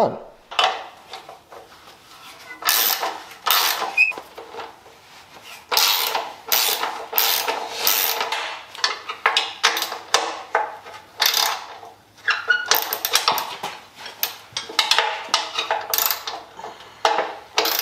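Ratchet wrench and metal hand tools clicking and clanking on a stamped-steel Subaru rear subframe as its bolts are worked loose, in irregular bursts of sharp metallic clicks, some in quick runs.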